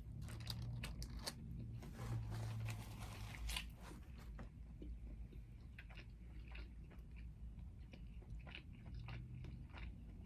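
A person biting and chewing crunchy food: a run of small crunches and wet clicks, densest about two to three and a half seconds in.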